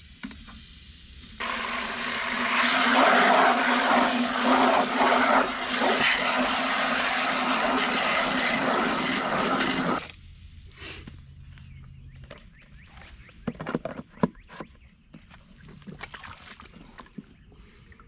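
Garden hose spray nozzle running water into a plastic chicken waterer, starting about a second and a half in and cutting off suddenly about eight seconds later. A few light knocks follow as the waterer is handled.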